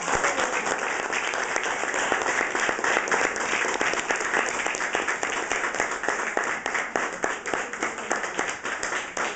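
Small audience applauding: dense, steady clapping of many hands.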